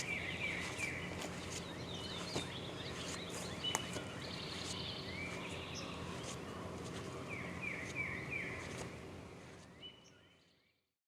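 Songbirds singing in spring woodland: one bird repeats short groups of three or four slurred whistled notes, another gives a quick high trill, with a few soft clicks. The sound fades out near the end.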